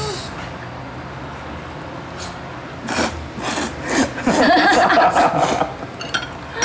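A person slurping ramen noodles loudly: a run of noisy sucks begins about three seconds in and goes on for about three seconds.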